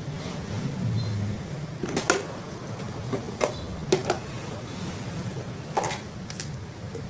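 Scattered short plastic clicks and knocks as a rice cooker's red top casing and lid assembly are handled and lifted off its body, over a steady low hum.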